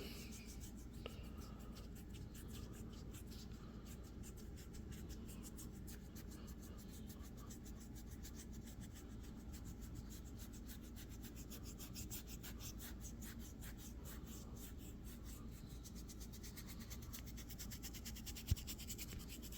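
Hands massaging a shoulder: faint, continuous rubbing of fingers over skin and clothing, with dense fine crackling and one sharper click near the end.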